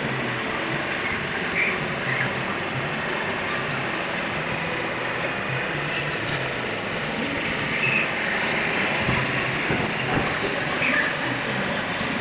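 Dockside ambience of a cruise ship docking, played back five times too fast, so that it turns into a steady, rapid rattling clatter. Brief high squeaky chirps stand out a few times, about a second and a half in, near eight seconds and near eleven seconds.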